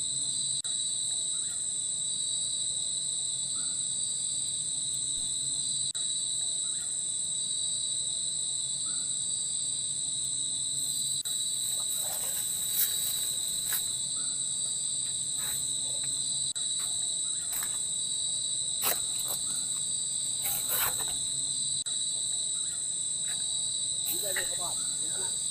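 Chorus of forest insects, crickets among them, keeping up a continuous high-pitched shrill at two pitches, with a few faint clicks and rustles about halfway through and near the end.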